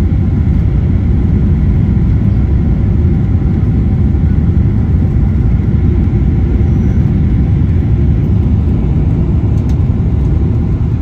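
Steady low rumble inside a Boeing 777's cabin on final approach, engine and airflow noise heard at a window seat beside the wing with the flaps extended.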